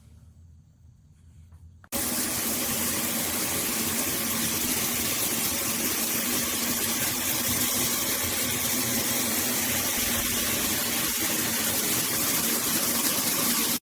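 Water pouring from a 16-inch ceiling-mounted rain shower head: a steady, loud hiss of spray that starts suddenly about two seconds in and cuts off abruptly near the end.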